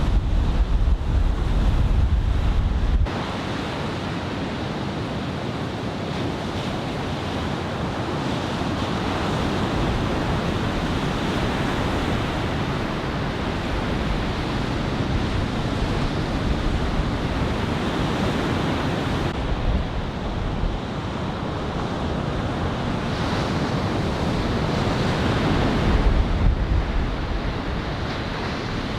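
Ocean surf from a building typhoon swell washing and breaking steadily, with wind buffeting the microphone. A heavy low wind rumble cuts off suddenly about three seconds in and gusts again briefly near the end.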